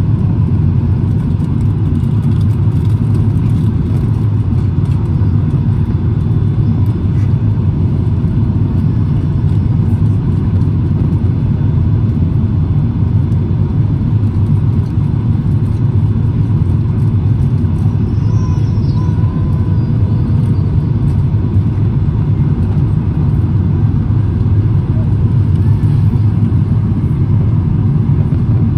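Airliner cabin noise heard from a window seat on approach to landing: a steady low rumble of the jet engines and rushing air, with no change in level.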